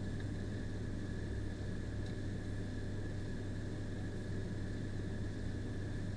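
Steady low electrical hum with hiss and a faint high whine, unchanging throughout; the wicking of solder makes no sound that stands out above it.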